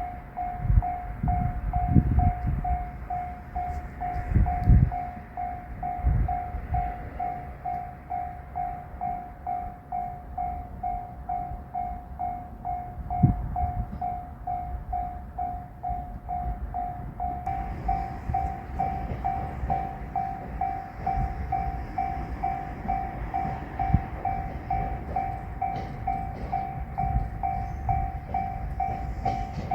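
Japanese level-crossing warning bell ringing its steady 'kan-kan' at about two strikes a second, over low rumbling and thumps. About seventeen seconds in, a faint higher hiss joins.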